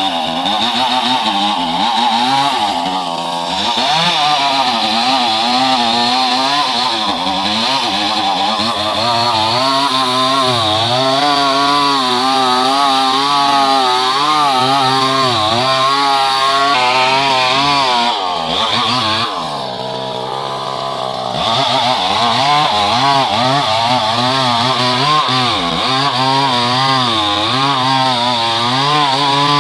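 Chainsaw running under load while cutting through wood, its engine pitch wavering up and down as the chain bites. It eases off briefly about two-thirds of the way through, then runs hard again.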